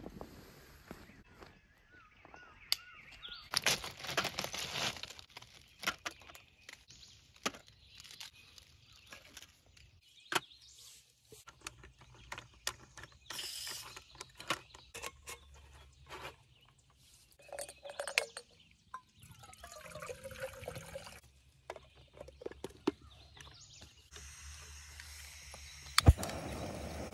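A vinyl dry bag rustling, then scattered clicks and clacks of camp stove parts and a canister being handled and set on a metal folding table. Near the end the gas of a Jetboil canister stove begins to hiss, the igniter gives one sharp click and the burner lights and burns with a steady hiss.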